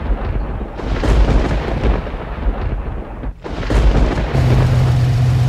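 A loud, uneven rumble, then about four seconds in the 1989 Mustang GT's 5.0 V8, newly fitted with GT40 heads, comes in abruptly and keeps running steadily at idle.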